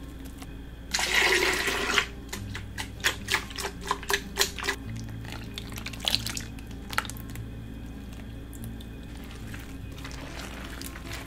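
Thick red chili seasoning paste sliding out of a bowl onto chopped garlic chives in an earthenware bowl: a wet rush about a second in, followed by a quick run of soft wet splats and plops, with a few more a little later.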